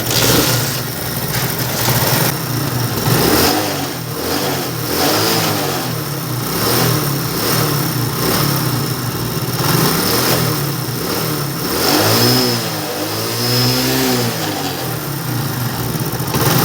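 Single-cylinder motorcycle engine starting up and running with repeated throttle blips, revved up and down around 12 seconds in. It has a freshly replaced cam, reset cam timing and adjusted tappets, and its sound is now completely right.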